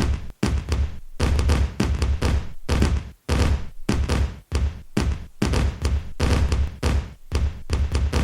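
Firecrackers going off in rapid, dense volleys of bangs, several a second, with deep thuds and short breaks about half a second in, about three seconds in and again a second later.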